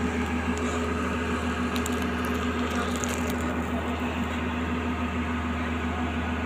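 Excavator's diesel engine running steadily at a constant low drone, with faint light rattles about two to three seconds in.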